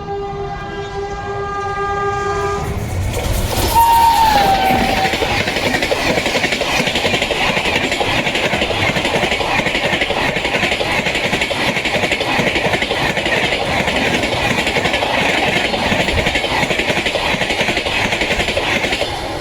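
An Indian Railways electric locomotive's horn sounds one long steady blast. A few seconds in, the train comes past at speed: a brief falling tone, then a long loud rush of wheels and wagons on the rails with clickety-clack, fading near the end.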